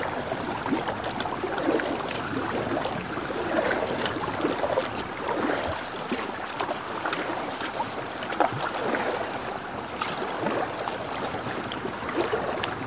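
Kayak paddle strokes: the blades dipping and splashing in calm river water, with small irregular drips and trickles between strokes.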